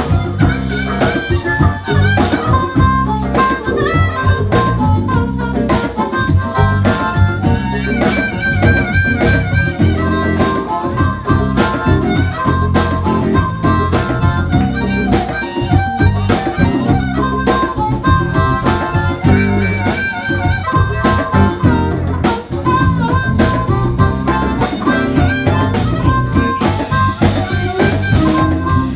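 Live blues band playing an instrumental passage: a blues harp (diatonic harmonica) cupped to a microphone plays held, bending notes over electric guitar and drums in a steady beat.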